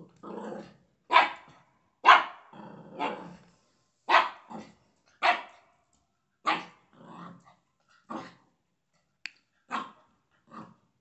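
Labrador puppy barking in a string of about a dozen short barks, roughly one a second, with low growls between some of them.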